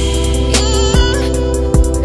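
Background music: a song with a steady drum beat over a deep bass line.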